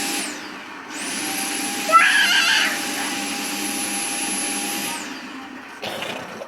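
Vacuum cleaner switched on and off: its motor whine dies away at the start, spins back up about a second in, runs steadily, then winds down about five seconds in. A brief, loud, high-pitched squeal cuts in about two seconds in.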